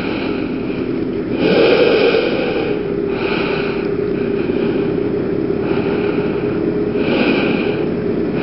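A PGO PMX 110cc two-stroke scooter engine running under way. It revs up briefly about a second and a half in, then holds a steady note.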